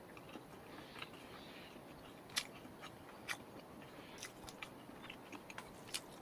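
Faint, irregular sharp clicks and small crackles, a dozen or so, over a quiet background; the loudest come about two and a half and three and a half seconds in.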